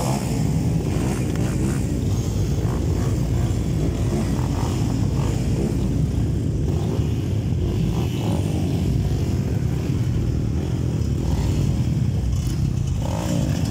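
Several motocross bike engines running together on the start line, a steady low sound without breaks or clear revs.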